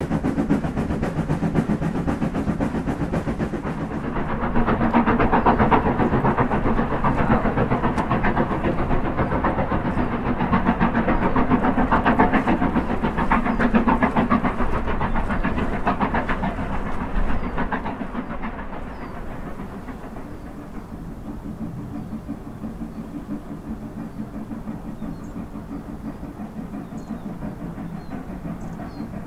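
Steam train running along the line: a rapid rhythmic clatter of wheels and rail joints with the locomotive's working beats. About 19 seconds in it drops to a quieter, steadier running sound.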